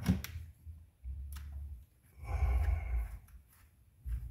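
Small clicks of hand-handled parts and a low rumble, then a breathy sigh lasting about a second, a little over two seconds in.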